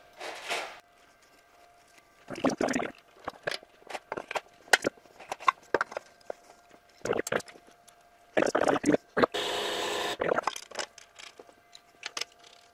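Hands-on work on steel hydraulic cylinders and hose fittings: irregular metallic clicks, knocks and clatter, with one brief steady hiss about nine and a half seconds in.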